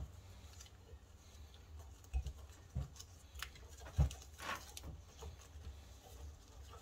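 Hands picking at taped wiring on a fuel pump assembly: a few light clicks and rustles, the sharpest about four seconds in, over a faint low hum.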